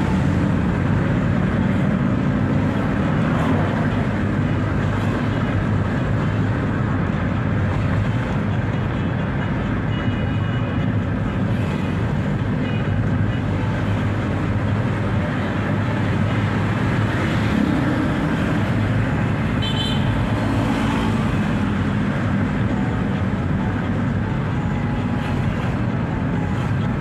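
Steady road and engine noise heard from inside a moving car's cabin. A brief high-pitched tone sounds about twenty seconds in.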